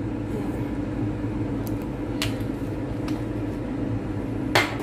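Steady low mechanical hum of a kitchen fan with a few faint ticks, then near the end a short scrape as a spatula goes into the stainless steel pan of browning pork.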